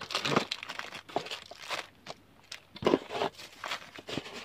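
Plastic-bagged accessories rustling and crinkling as they are taken out of a cardboard box, with a few sharper knocks; the loudest bursts come near the start and just before three seconds in.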